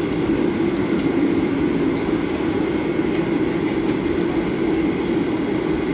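Steady cabin noise of a Boeing 737-800 rolling on the ground: the hum of its CFM56 jet engines at low power and the rumble of the airframe, with no rise in engine pitch.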